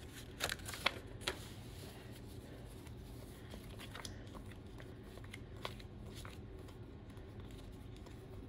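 Paper sticker sheets being flipped and shuffled by hand, with a few sharp taps and snaps of card stock in the first second and a half, then faint scattered rustles.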